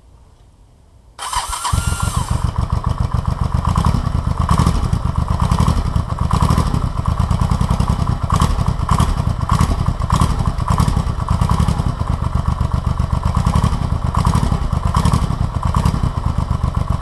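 Electric starter cranking the Honda Shadow VT500C's V-twin engine in one long, steady crank of about sixteen seconds, with a short whine as it engages. The engine does not catch, because it is being started cold with a broken choke cable.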